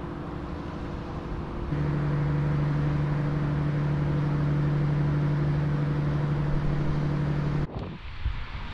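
A steady, low mechanical hum over waterfront background noise, getting louder about two seconds in and cutting off abruptly near the end.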